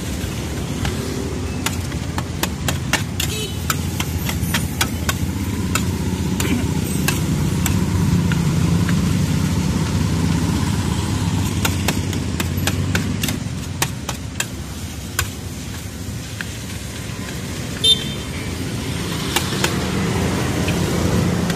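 Steady road-traffic noise that swells in the middle and eases later, with many short clinks and scrapes of a metal spatula against a wide frying pan as noodles are stir-fried.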